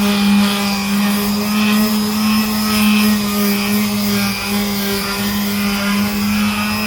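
Power sander running at a steady speed with a constant hum, sanding down cured body filler.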